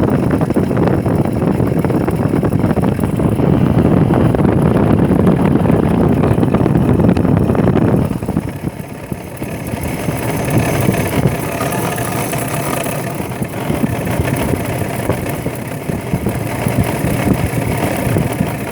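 GM 6.0 L V8 running with a loud knocking noise from its alternator, which sounds like engine knock: the alternator shaft is broken and its pulley jammed, so the alternator is almost shot. About eight seconds in the sound drops in level and becomes thinner.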